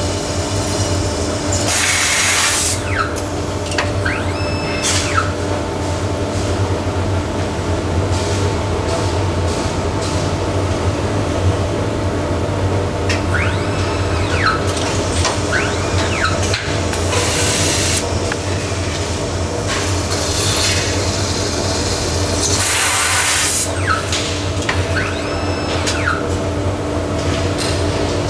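Automatic CNC machine for aluminium mosquito-net frame profiles working: a steady machine hum, with about three bursts of hiss of roughly a second each and several short falling whines and clicks as its heads move and work the profile.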